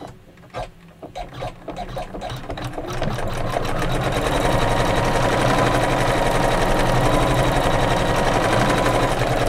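Computerized embroidery machine stitching a tack-down line that fastens petal fabric over a hexagon outline. It starts with separate, slower needle strokes, then about three seconds in settles into a fast, steady stitching run.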